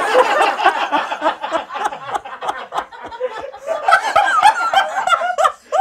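A group of people laughing together, several voices overlapping throughout.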